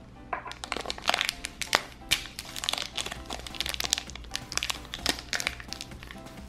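A thin yellow polyethylene (LDPE) wrapper crinkling as fingers pick at it and tear it open. A quick, uneven run of small crackles starts a moment in and goes on nearly throughout, over steady background music.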